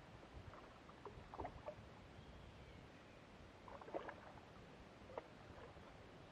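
Faint, scattered splashes and sloshes of water, in a few short clusters, loudest about four seconds in.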